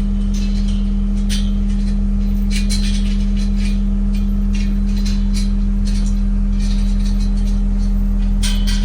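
Tractor engine running steadily at a constant speed, with scattered light rattling clinks over it.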